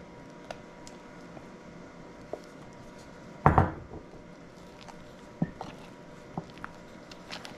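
Wooden spoon stirring and folding whipped cream into a thick custard in a ceramic mixing bowl: scattered light taps and scrapes against the bowl, with one louder knock about three and a half seconds in.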